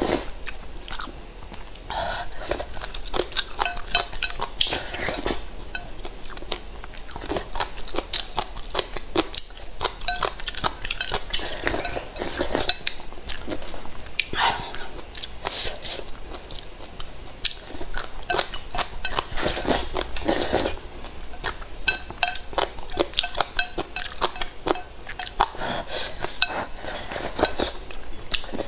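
Porridge being slurped from a ceramic bowl held to the mouth. Wooden chopsticks scrape and click against the bowl rim many times, with chewing in between.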